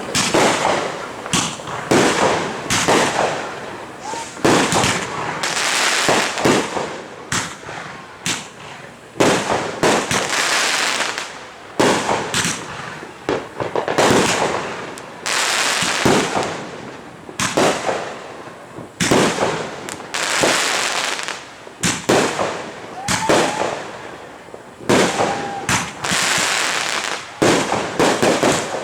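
Consumer fireworks going off one after another all around: a steady barrage of sharp bangs and booms, several a second at times, each trailing off in echo and crackle, with a few short whistles rising among them.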